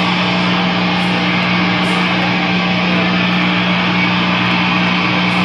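Loud, steady drone from cranked guitar and bass amplifiers: one held low tone with a thick hiss over it, unchanging throughout.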